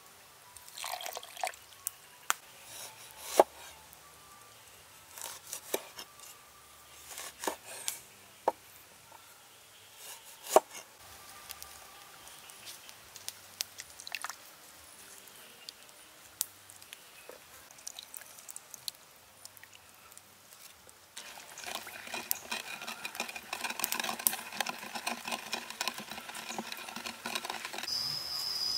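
Scattered sharp clicks and taps of a spoon against a wooden mortar as sugar, salt and lime juice go in over chopped chillies, with juice dripping in; two knocks are much louder than the rest. About two-thirds of the way through, the background turns to a denser, louder outdoor noise with crickets, and a steady high chirp starts near the end.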